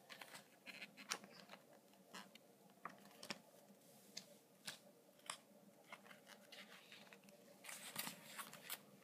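Faint handling of a picture book: scattered small clicks and taps from fingers on the glossy pages, then a louder rustle as a page is turned about eight seconds in.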